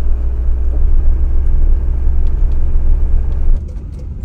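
Steady, loud low rumble of a motorhome driving on the road, which drops abruptly to a quieter rumble about three and a half seconds in.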